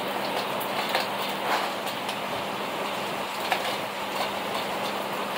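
Heavy rain falling as a steady hiss, with a few faint drips or taps and a faint steady low hum underneath.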